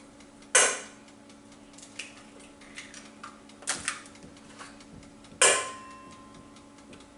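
Eggs cracked one at a time on a stainless steel mixing bowl: two sharp cracks about five seconds apart, the second leaving a brief metallic ring, with small clicks of shell and handling in between.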